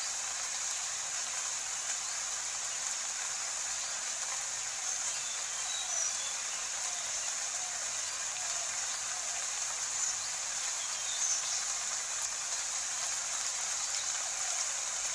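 Steady rain ambience: an even hiss of falling rain that does not change.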